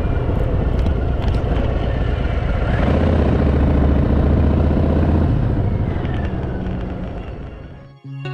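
Harley-Davidson Fat Boy's V-twin engine running while riding, growing louder about three seconds in, then fading away near the end.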